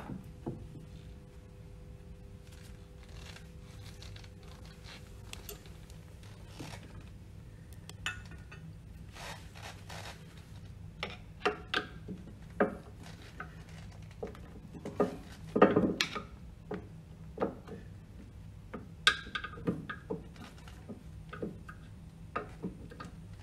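Scattered metallic clicks, taps and scrapes of a hex key working the screws of a pump's split coupling. The clinks come closer together in the second half, with the loudest cluster about two-thirds of the way through.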